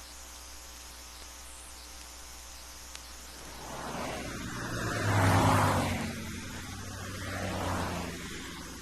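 A motor vehicle passes by at speed, swelling up to its loudest about halfway through and fading, with a second, smaller swell near the end.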